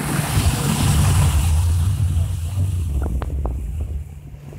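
Pontoon boat's motor running steadily under way, a low drone under wind buffeting the microphone, with a few light clicks about three seconds in.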